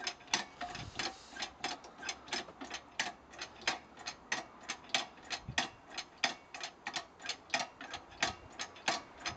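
Fast, even mechanical clicking, about three to four clicks a second, from the homemade cider press being worked.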